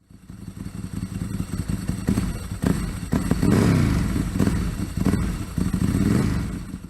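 Motorcycle engine running and being revved, its pitch rising and falling several times; it cuts off suddenly near the end.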